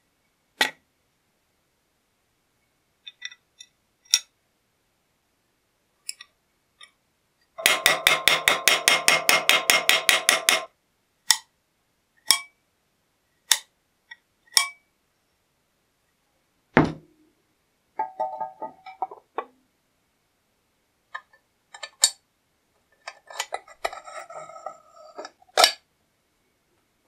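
Small hammer peening a steel rivet on a bench vise: a quick run of about twenty light, ringing taps over some three seconds. Around it come single metal clinks and knocks, and short bursts of clinking, as the charcoal iron's steel parts are handled.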